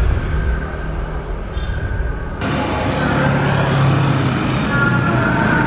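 Street traffic noise with a car's engine running close by. The sound changes abruptly about two and a half seconds in.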